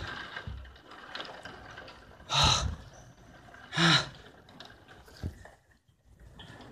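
A person breathes out heavily twice, about two and a half and four seconds in, the second breath with a little voice in it. There is a short click about five seconds in.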